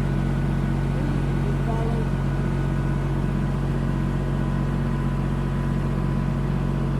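Backhoe engine running steadily at an even, unchanging speed.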